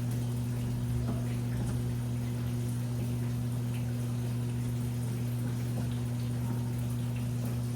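Washing machine running: a steady low hum with faint water sloshing and small ticks over it.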